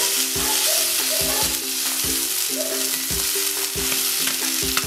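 Sardine fillets sizzling steadily on a hot, oiled cast-iron griddle as they grill. Background music with a steady beat plays faintly underneath.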